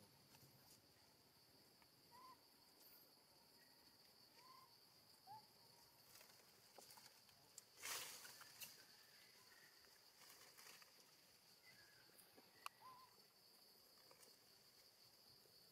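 Faint forest ambience: a steady, high-pitched insect drone with a few soft short chirps and scattered small clicks, and a brief rustle about eight seconds in.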